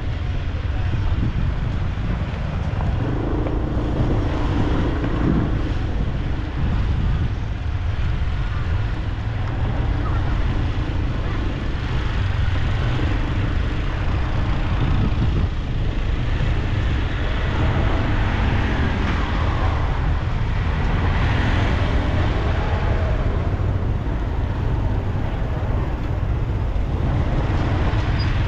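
Steady road traffic noise, with wind rumbling on the microphone.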